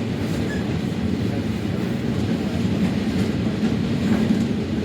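Steady low rumble of a moving train heard from inside the passenger carriage, with a few faint brief squeaks and ticks over it.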